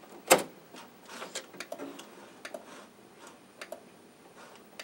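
A floppy disk pushed into the Amiga 1000's built-in 3.5-inch drive, seating with one sharp click about a third of a second in, followed by scattered light ticks.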